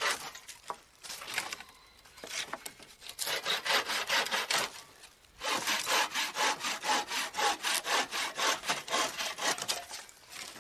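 Folding bucksaw cutting through a dry round branch with quick back-and-forth strokes: a short run of strokes, a brief pause about five seconds in, then a longer steady run. The crisp rasp of the teeth is a sign of how dry the wood is.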